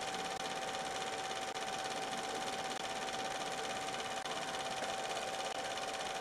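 Film projector running: a steady mechanical whirr and fast clatter under a constant high hum, the sound of an old silent home movie being played back.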